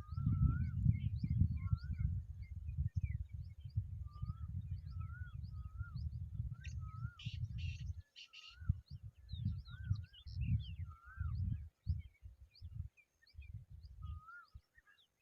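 Wild birds calling: a short warbling whistle repeated every second or so, with many quick high chirps over it. A low rumble runs under them, steady for the first half, then coming and going in gusts.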